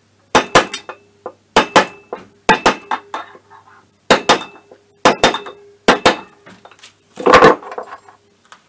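Hammer striking a metal driver tube to tap a crankshaft oil seal into an MBK Spirit scooter's aluminium crankcase: sharp metallic clinks in quick pairs, about seven times, with a ringing note after the blows.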